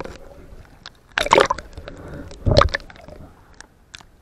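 Water sloshing and gurgling, with two louder splashy bursts about a second and two and a half seconds in and scattered sharp clicks between them.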